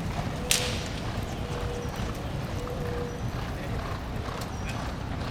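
Hoofbeats of two Thoroughbred racehorses galloping together in a workout, with a sharp click about half a second in.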